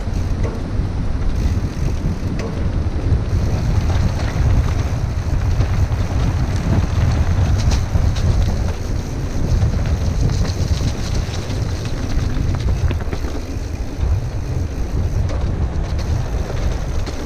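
Wind buffeting a helmet camera's microphone during a fast mountain-bike descent, over the crunch of knobbly tyres on a dry dirt trail and the chatter and clicks of the bike rattling over bumps.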